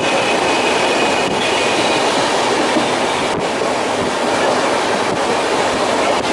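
Steady running noise of a moving passenger train heard from inside a sleeper coach: wheels on the rails and the coach rattling, with a faint high squeal in the first two seconds.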